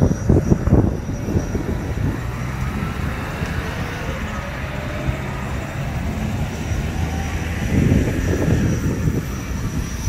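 Aircraft tow tractor's engine running as the tug drives past. It is a low rumble that swells near the start and again near the end, with a faint steady high whine behind it.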